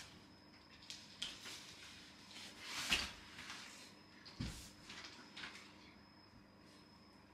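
Faint handling noises from a heavy, large cardboard box being moved and leaned against the wall: scattered knocks and rustles, a short scraping rush about three seconds in and a soft thump about a second later.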